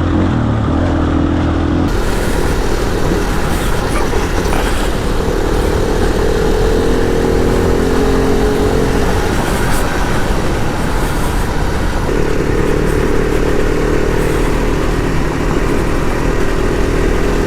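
Adventure motorcycle engine running at speed, heard from the rider with wind and road noise; the engine note holds at a few steady speeds, shifting up and down now and then.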